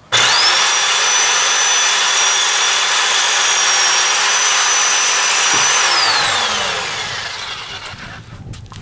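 A power cutting tool cutting through a kiosk anchor bolt. The motor spins up with a rising whine, runs steadily for about six seconds, then winds down with a falling whine.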